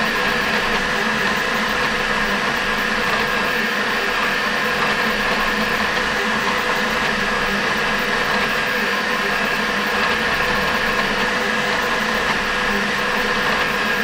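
ELEGOO Centauri Carbon CoreXY 3D printer printing: a steady whir of fans and motors with several steady whining tones running through it.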